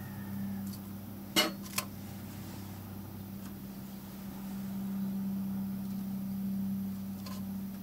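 Two sharp clicks on a stainless steel sink about half a second apart, as a cockroach is dropped in beside a centipede, over a steady low hum.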